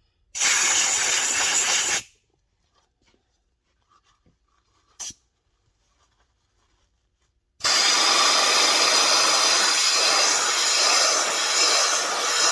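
Compressed air hissing from an air nozzle in two blasts: one of about a second and a half, then a longer one of about five seconds near the end, with a brief puff between them.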